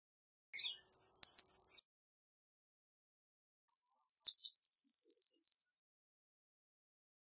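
Eurasian blue tit singing two short, high-pitched phrases a couple of seconds apart. Each starts with thin high notes that step down into a rapid trill, and the second phrase ends in a longer trill.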